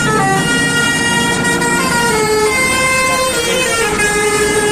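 Multi-tone 'telolet' bus air horn playing a tune of held notes that step from pitch to pitch, cut off abruptly near the end.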